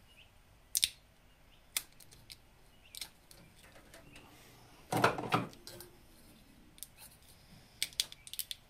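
Scissors cutting split corrugated plastic conduit on a cable: a handful of short, sharp snips and clicks, with one louder, longer cut about five seconds in.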